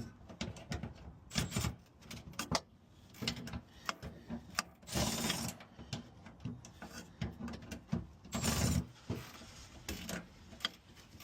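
Irregular clicks and knocks, with two longer scraping or rustling passes, from parts being handled as a new fuel pump is fitted.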